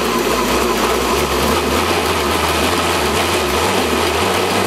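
Cheap countertop blender motor running under a thick load of pineapple and whipped-topping mixture. Its hum rises in pitch near the end as it gets up to speed.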